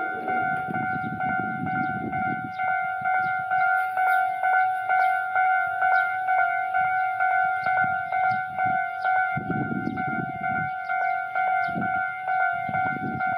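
Railway level crossing alarm ringing: a steady two-note electronic tone, struck about twice a second, as a train approaches. A low rumble swells up a few times.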